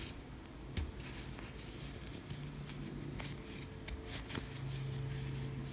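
Faint clicks and rustling of a thin steel crochet hook working cotton yarn in single crochet stitches, over a low steady hum.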